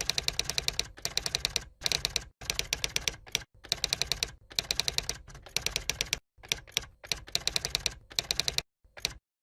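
Typewriter typing sound effect: rapid keystroke clicks in bursts of up to about two seconds, broken by short silent gaps.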